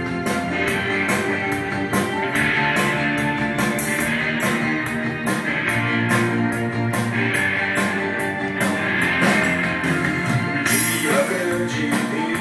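A pop-rock song with a steady drum beat, bass, guitar and keyboards, played from a vinyl record on a Garrard 50-SB turntable.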